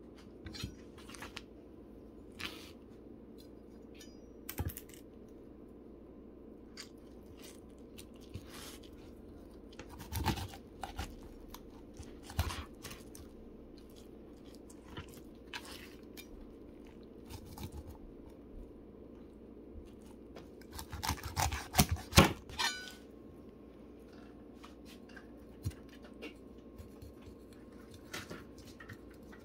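Knife cutting and scraping through a vermilion rockfish on a cutting board: scattered crunches, scrapes and taps, with a denser, louder run of crunching about three quarters of the way in, over a steady low hum.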